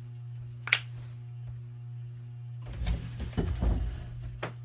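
Handling noise close to the microphone over a steady low hum: one sharp click about a second in, then about a second of rustling and bumping noise near the end.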